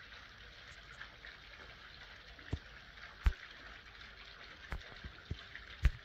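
Handling noise on a handheld phone: about five short, sharp knocks, the loudest a little past three seconds in and near the end, over a steady faint outdoor hiss.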